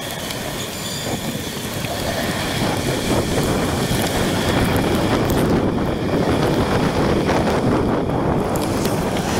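Wind on the microphone mixed with road traffic noise while riding along a rain-wet city street, getting louder about three seconds in.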